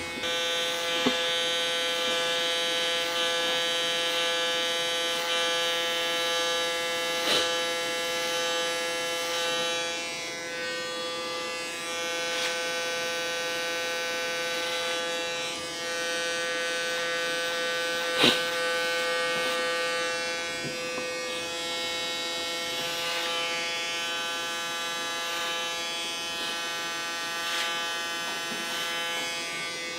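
Cordless electric hair clipper running with a steady buzz as it shaves the hair at the nape, with a few sharp clicks.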